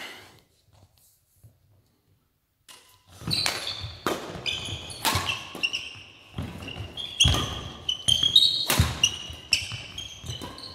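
Badminton rally: sharp cracks of rackets hitting the shuttlecock about once a second, with sneakers squeaking on the hall floor between the shots. It starts about three seconds in, after a quiet lead-in.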